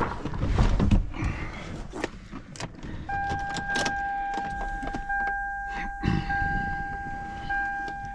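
Clunks and rustling, with keys handled, as the car is got into. Then, from about three seconds in, a steady electronic warning tone with short breaks about every second. This is a car warning chime or jump-pack alarm sounding while the battery-drained car is being jump-started, with no engine running.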